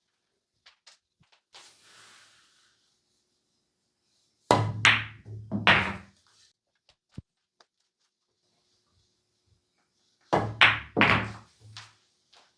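Two pool shots about six seconds apart: each a sharp crack of the cue striking the cue ball, followed by billiard balls clacking together and thudding into the cushions or pockets. Faint clicks of balls rolling and touching come in between.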